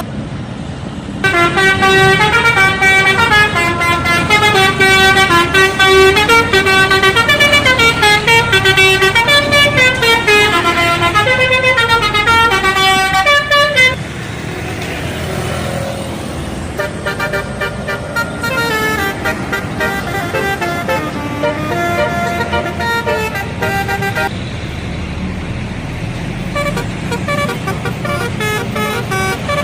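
Indonesian bus 'telolet' horn: a multi-trumpet air horn playing quick, changing melodic tunes. It comes in loud about a second in and cuts off suddenly about halfway through. A quieter telolet tune follows over road noise, fading to fainter sound near the end.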